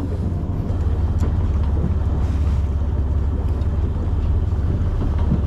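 Steady low drone of the charter boat's engine running under way, with wind rumbling on the microphone.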